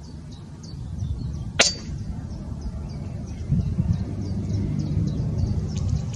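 A PCP air rifle fires a single shot about a second and a half in: one sharp crack. Low wind rumble on the microphone runs underneath.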